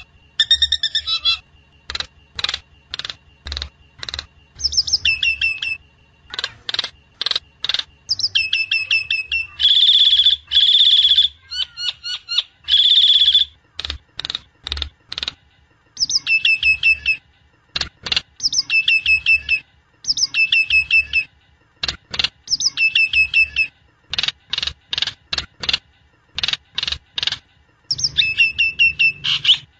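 Great myna (jalak nias) calling: a long run of short, harsh, stuttering phrases of quick repeated notes, with a few longer buzzy calls about ten to thirteen seconds in. It is played as a lure call to set a caged myna singing.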